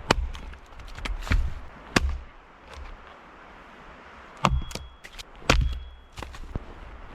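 Axe blows splitting a dry wooden round into wedges: a series of sharp chopping strikes with a dull thud, irregularly spaced, about six of them.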